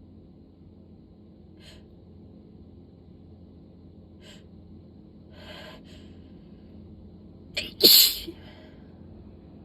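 A person sneezing as part of a sudden sneezing fit: a few faint short breaths, a sharp inhale about five and a half seconds in, then one loud sneeze about eight seconds in.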